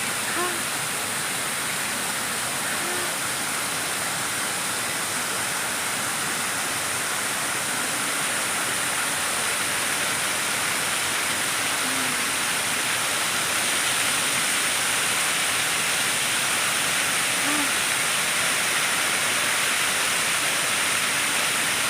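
Fountain water falling from an upper stone, a steady continuous rush of splashing water.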